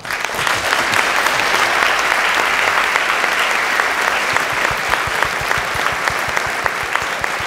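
A large audience applauding, sustained steady clapping that starts suddenly and thins a little toward the end.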